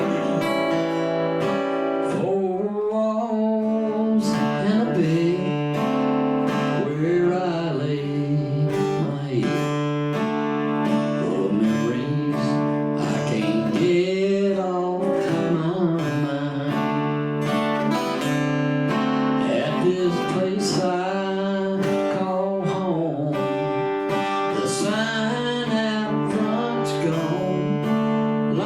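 Country song performed live: a man singing with a strummed acoustic guitar.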